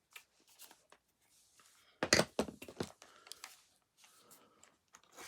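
Plastic parts of a Shark CarpetXpert vacuum floor head being handled during disassembly: a quick run of sharp clicks and knocks about two seconds in, with lighter scraping and rustling around it.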